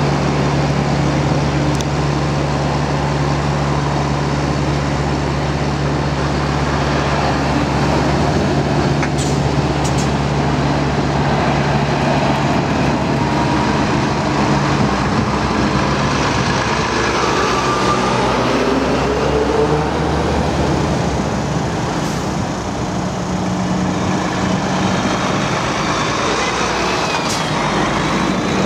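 Heavy trucks' diesel engines and road traffic at a junction: a steady low engine hum close by, then engines rising and falling in pitch as trucks pull through.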